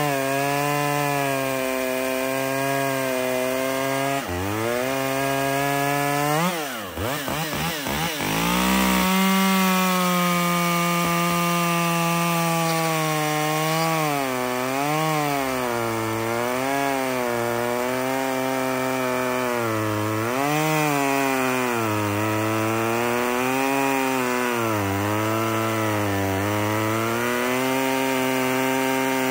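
Top-handle chainsaw cutting through a log, its pitch sagging and recovering again and again as the chain loads up in the wood. About seven seconds in it eases off for a moment, then revs back up and carries on cutting.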